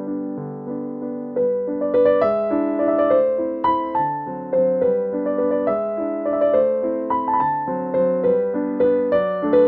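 Background piano music: a melody of single notes over chords, each note struck and fading.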